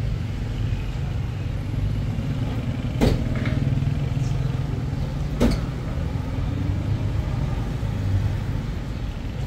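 Steady low rumble of a running motor vehicle, with two sharp knocks about two and a half seconds apart.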